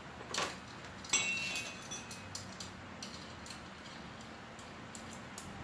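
Metal hand tool clicking and clinking against a screw in a motorcycle's plastic fairing as the screw is worked loose. One sharp metallic clink about a second in rings briefly, followed by light ticks about twice a second.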